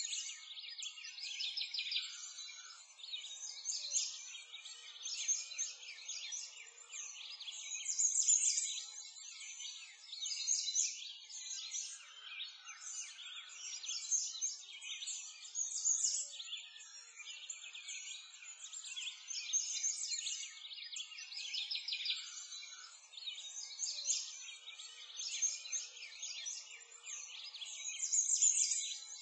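A dense, continuous chorus of small birds chirping and trilling, swelling and fading every few seconds. It is a nature-sound track laid over a computer-rendered walkthrough.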